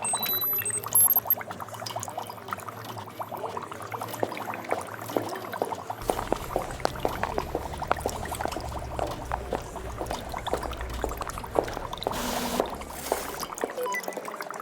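Laboratory ambience sound effect: liquid bubbling and pouring with many small pops, a few short high beeps in the first second, a low hum coming in about six seconds in, and a brief hiss near the end.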